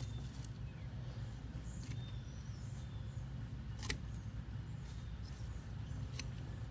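Scattered sharp snips as potato plant stems are cut off, about six clicks spread over several seconds, the loudest about four seconds in, over a steady low rumble.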